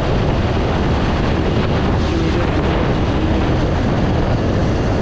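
Steady wind rush on a helmet-mounted GoPro's microphone while riding a motorcycle, with the engine running underneath.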